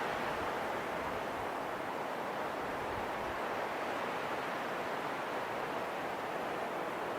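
Steady wind, an even rushing noise with no gusts, breaks or distinct events.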